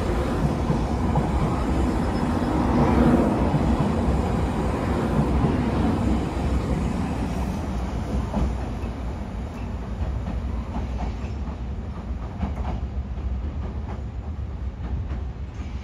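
JR Kyushu 883 series electric train pulling out and running along the track, a dense rumble of wheels on rails with clacking over the rail joints. The noise fades steadily as the train draws away.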